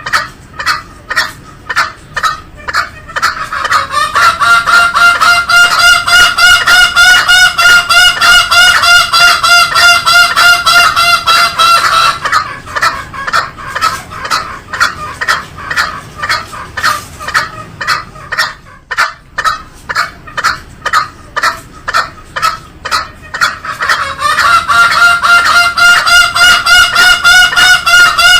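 Green junglefowl calling: short clucking notes repeated about three a second, with a long steady pitched call held over them from about four to twelve seconds in and again near the end.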